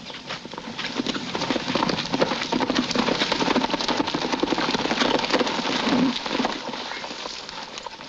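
Horses galloping in over dirt, a dense clatter of hoofbeats that grows louder and then eases as they pull up.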